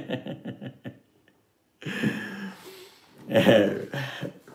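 A man laughing: a quick run of short rhythmic 'ha-ha' bursts, a pause of about a second, then more breathy laughter.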